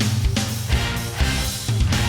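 Background music: rock-style backing track with guitar and a steady drum beat.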